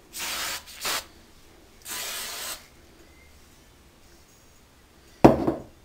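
Aerosol can of oil sheen spray hissing in three short bursts: about half a second, a brief puff, then about three-quarters of a second. A sudden loud thump follows near the end.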